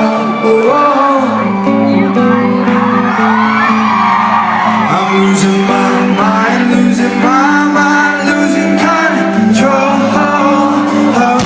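A rock band playing live, with a lead singer over sustained guitar and keyboard chords and drums.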